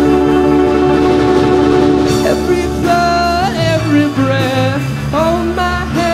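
Live rock band playing: a chord is held for about two seconds, then a singer's voice comes in over the band.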